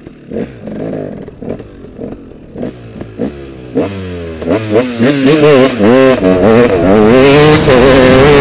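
Dirt bike engine ticking over with short throttle blips, then revving up hard about four seconds in as the bike pulls away along a rough track, its pitch rising and dipping with the throttle.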